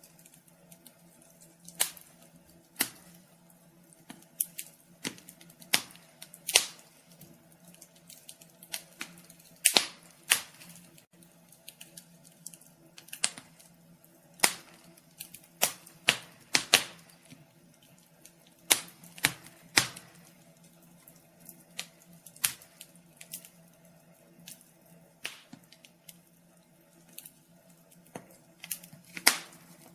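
Wood fire crackling: irregular sharp pops and snaps, some single and some in quick clusters, over a faint steady hum.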